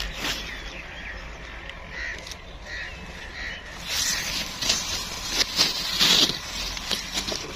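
Outdoor birds calling, a short call about every half second for a while, then louder scratchy rustling noises from about halfway through.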